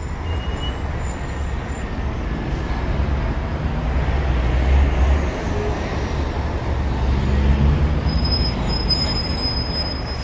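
Street traffic noise: a steady low rumble that swells about halfway through and again later, like a heavy vehicle passing.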